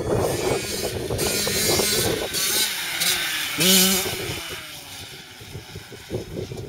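Dirt bike engines running, with a short, sharp rev about three and a half seconds in, the loudest moment, as a blue Yamaha YZ85 launches off a jump. The engine sound then fades as the bike moves away.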